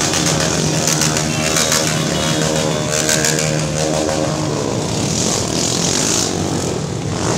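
A stream of small motorcycles riding past one after another, their engines running and revving, with pitch rising and falling as each bike goes by.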